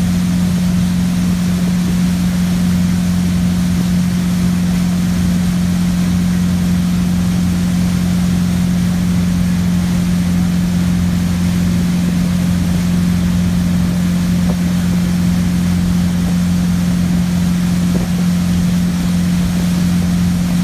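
Motorboat engine running steadily at one constant pitch while towing a water skier, with the hiss of the churning wake beneath it.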